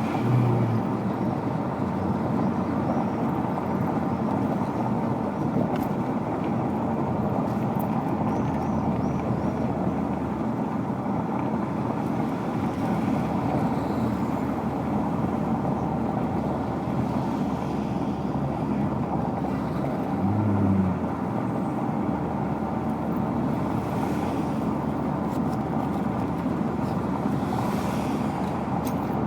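BMW 745i V8 with a custom-made exhaust running steadily, with two short low swells about half a second and about twenty seconds in.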